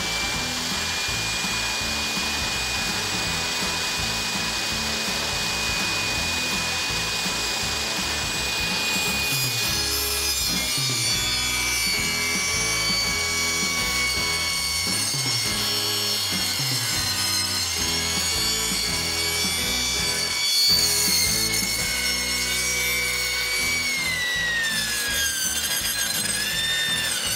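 Table saw running, its motor whine steady at first, then dipping and wavering from about a third of the way in as the blade cuts into a peach and its hard pit. The pitch sags near the end under the load.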